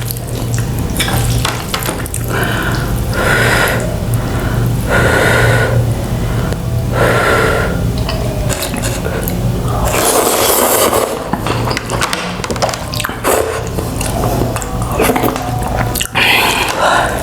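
Geikara spicy instant noodles being slurped close to the microphone, with chewing between the slurps. There are about five separate slurps, each lasting under a second to about a second.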